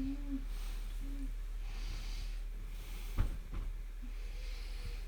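A person breathing close to the microphone in slow, soft, hissy breaths, with a few small sharp clicks a little over three seconds in.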